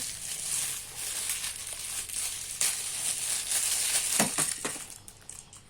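Crinkling and rustling of plastic being handled while parts of a baby walker toy are fitted, with a few light knocks about four seconds in.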